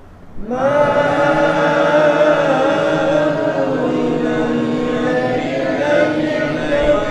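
Quran recitation chanted in one long, drawn-out melodic phrase that starts after a brief pause, its pitch wavering slowly.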